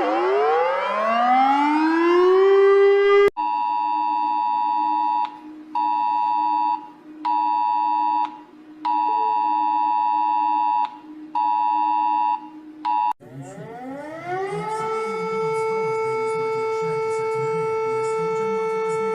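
A sequence of emergency alert alarms: a siren slides down in pitch and back up, then cuts off abruptly. A steady multi-tone alert tone follows, switching on and off in uneven bursts over a lower steady hum, and about 13 seconds in a siren winds up from a low pitch and holds a steady wail.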